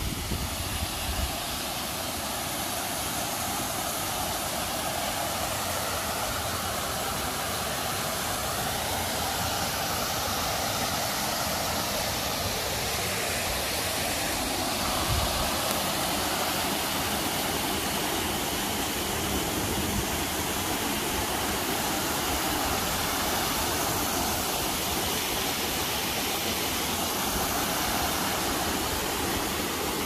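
Waterfall pouring over a layered rock ledge into a pool: a steady, even rush of falling water.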